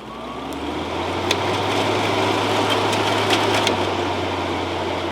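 Midea 5000 BTU window air conditioner's fan motor spinning up to high speed: a rising whir that levels off after about two seconds into a steady hum and rush of air, with a few faint ticks.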